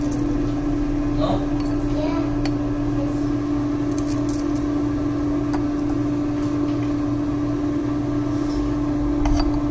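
Air fryer running, its fan giving a steady, even hum on one constant tone, with a few faint light clicks over it.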